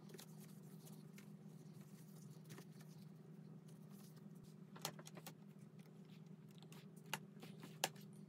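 Near silence with a low steady hum, broken by a few sharp clicks of a hard plastic MacBook case being handled: a cluster about five seconds in and two more single clicks near the end.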